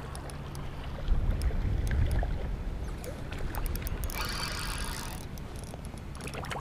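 Low wind rumble on the microphone with water moving in the shallows at the creek edge, and a short splash about four seconds in. A few faint clicks come just before the splash.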